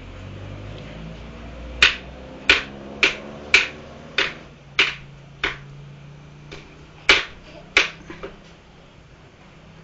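A series of about ten sharp snapping clicks, roughly one every two-thirds of a second, starting about two seconds in, with a short gap near the middle.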